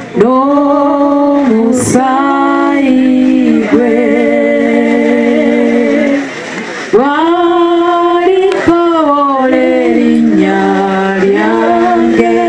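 Voices singing a slow song in harmony, long held notes sliding between pitches, with a short break about six seconds in.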